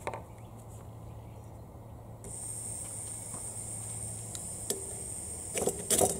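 Gas starts hissing steadily from a canister camping stove's burner about two seconds in as the valve is opened. Near the end a knife is scraped down a ferro rod about three times, and the sparks light the gas.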